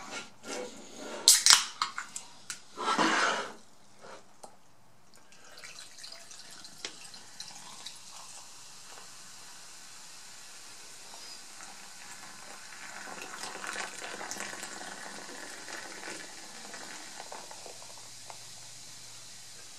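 A Pepsi can cracked open with a sharp snap of the tab, a short rush of soda poured into a cup, then the soft, steady hiss of the carbonated soda fizzing.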